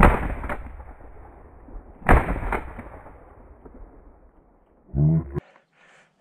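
Two shotgun shots about two seconds apart, each cracking sharply and then echoing away. They are fired at a hare flushed from the dog's point, the second a follow-up in case the first had not killed it.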